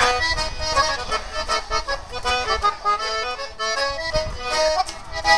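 Piano accordion playing an instrumental melody, the notes changing several times a second over a low bass pulse.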